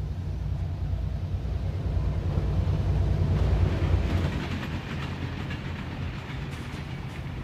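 A train led by several diesel locomotives passing by, a heavy engine rumble that builds to its loudest about four seconds in and then eases off.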